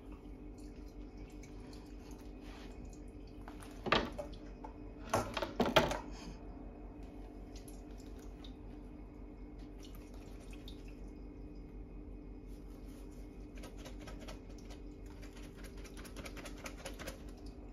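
Kitchen utensils and containers being handled: a few sharp knocks and clatters about four and six seconds in, then a run of light, rapid ticking near the end, over a steady low hum.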